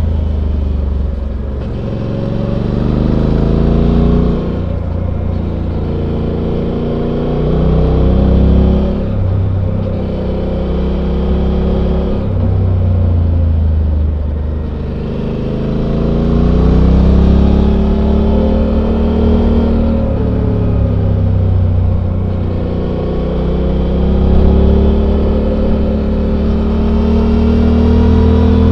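Suzuki V-Strom 800's 776 cc parallel-twin engine through its stock exhaust, recorded on board while riding: it repeatedly climbs in pitch under acceleration, dropping suddenly at each upshift, with an easing-off and slowdown in the middle before pulling up through the gears again.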